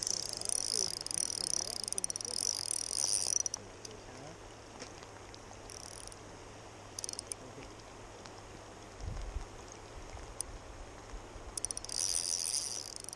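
KastKing Zephyr 1000 spinning reel being cranked while a fish is played on a bent rod, its gears giving a fast high-pitched whirr. The whirr comes in spells: for the first three and a half seconds, two short turns around six and seven seconds in, and again from about twelve seconds. A low bump comes about nine seconds in.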